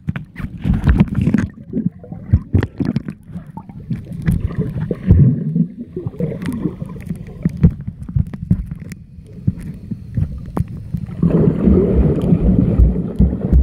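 Muffled underwater water noise picked up by a camera held in the sea: a low sloshing rumble with irregular clicks and knocks, turning into a denser rush about eleven seconds in.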